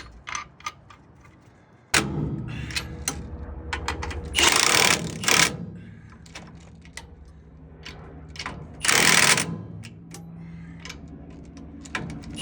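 Light metallic clicks and knocks of tools on the brake parts, then a motor starts about two seconds in and runs with a steady low hum, with two short, loud bursts of rattling noise from the machine.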